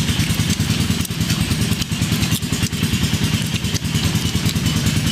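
A small engine running steadily with a fast, even low throb.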